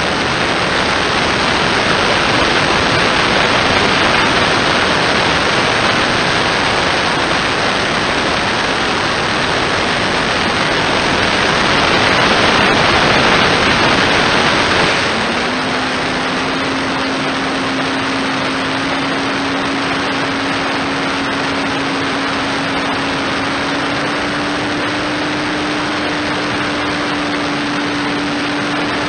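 Airflow rushing over the onboard camera of an RC flying wing in flight. About halfway through, the electric motor and propeller come in with a steady hum that steps up slightly in pitch near the end, while the wind noise eases.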